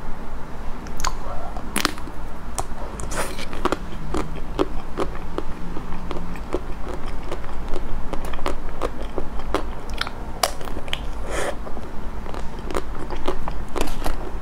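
Biting and chewing into a chocolate-coated ice cream bar: the hard chocolate shell cracks in many sharp, irregular snaps and crackles.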